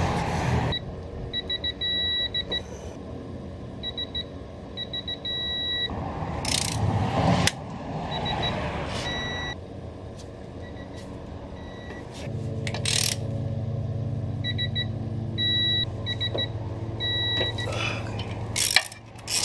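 Quinn digital torque adapter beeping as transmission adapter bolts are tightened to 40 ft-lb. Runs of short beeps end in a longer held beep as each bolt reaches the set torque, several times over. The ratchet clicks and clanks between bolts, and a low steady hum comes in about halfway through.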